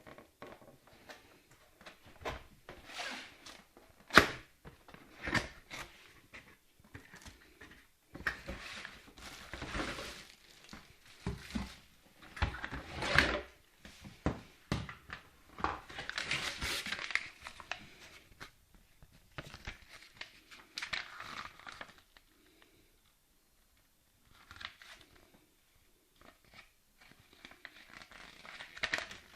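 Packaging being handled and opened: irregular crinkling and tearing with sharp knocks and clicks, pausing briefly about two thirds of the way through.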